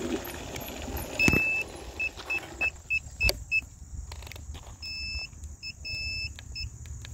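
High-pitched electronic beeper of an iSinwheel S9 Max electric scooter. It gives one longer beep about a second in, then a run of short, evenly spaced beeps, a pause, and then a mix of long and short beeps in the second half. Two sharp knocks fall among the early beeps.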